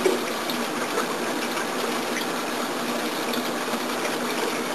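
Water circulating in a saltwater reef aquarium, a steady rush of moving water.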